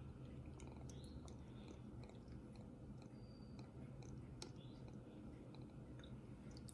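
Near silence: faint room tone with a low hum and a few faint, scattered ticks.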